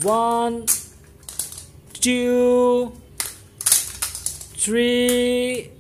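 Small hard plastic clicks and clatter as plastic balls are set into a plastic toy car-carrier trailer. Three long held vocal 'ooh' sounds at one steady pitch, each about a second long, are the loudest thing, near the start, about two seconds in and near the end.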